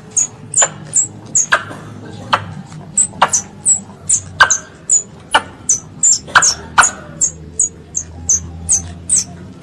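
Young squirrel's distress calls to its mother: sharp, high chirps repeated rapidly, about two to three a second, some sweeping steeply down in pitch, over a faint steady low hum.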